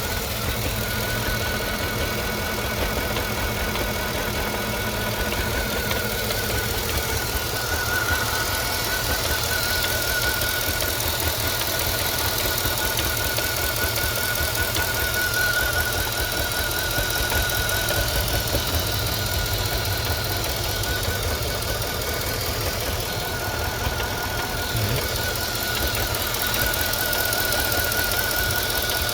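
Mercedes M273 5.5-litre V8 running at idle with an irregular, non-rhythmic rattle, and a wavering high whine throughout. The cause is undiagnosed; the owner wonders about a broken lever on the variable intake manifold or a cooling-system fault, since the rattle depends on engine temperature.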